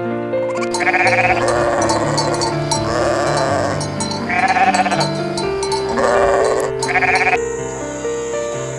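Several quavering bleats from a sheep or goat-like farm animal, one after another, over background music; the bleats stop near the end, leaving only the music.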